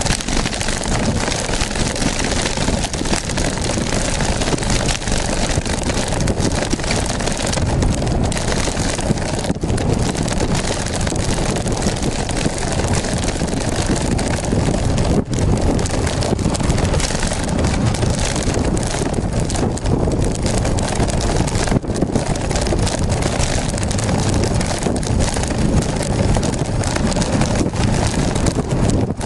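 Steady, loud wind rush on the microphone of a bicycle-mounted camera while riding.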